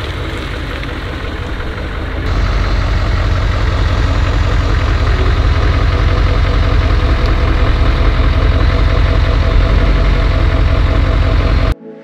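Chevrolet Silverado 3500's Duramax V8 turbodiesel running at idle, steady and low-pitched. It gets louder and heavier about two seconds in and cuts off abruptly near the end.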